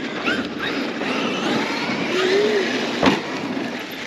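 Traxxas X-Maxx electric RC monster trucks driving over loose dirt jumps, with a steady scrabbling of tyres and motor. One sharp landing thud comes about three seconds in.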